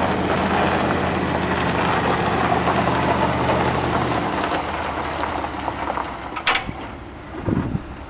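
Dodge Dakota V8 pickup engine running steadily as the truck rolls slowly past on a gravel lane, the hum dropping away about four seconds in. A short sharp noise follows a couple of seconds later.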